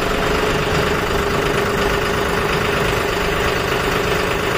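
John Deere 5310 tractor's three-cylinder diesel engine running steadily, with an even hum.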